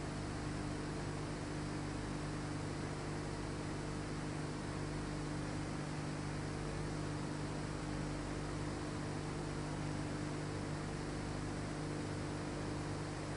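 Steady electrical hum with even hiss, with no separate strokes or knocks standing out. No sound of the carving itself can be picked out.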